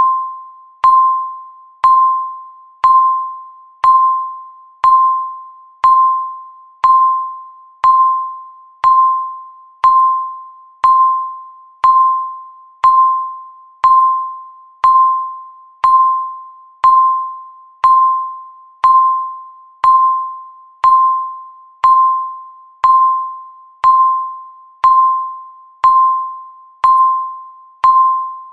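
Countdown timer beeps: one short electronic chime-like tone each second, each starting sharply and fading away, ticking off the seconds left.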